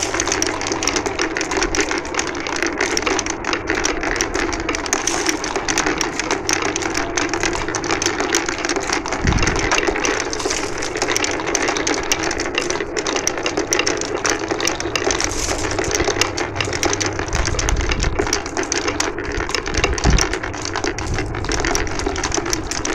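Many glass marbles rolling and clattering down a marble run: a steady, dense stream of clicks and rattles, with a couple of dull thuds.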